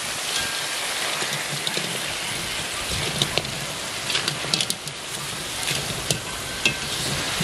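Food frying in a hot pan: a steady sizzle with scattered sharp pops of spitting oil.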